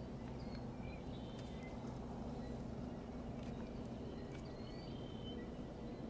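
Small birds chirping and whistling at intervals over a steady low hum.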